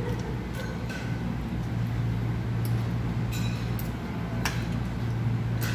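Metal fork and spoon clinking against a plate as food is cut and scooped: a handful of separate sharp clinks, over a steady low hum.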